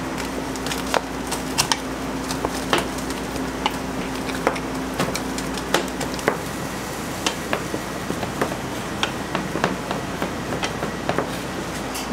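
Wooden spatula mixing a ground-meat filling in a stainless steel bowl, knocking and clicking against the bowl irregularly, about one or two knocks a second, over a steady hum.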